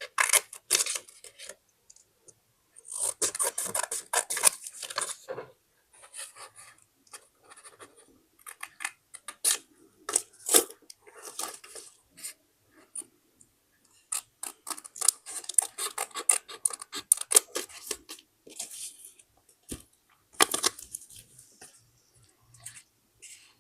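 Scissors snipping through paper in several bouts of quick cuts, with paper rustling and rubbing as it is handled, and short pauses between bouts.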